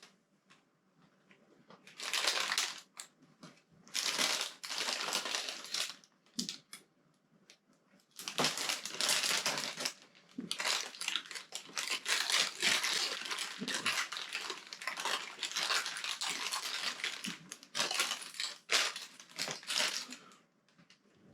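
Loose plastic Lego pieces being rummaged through by hand, in rustling, rattling bursts of a second or two with short pauses, as someone searches for a part.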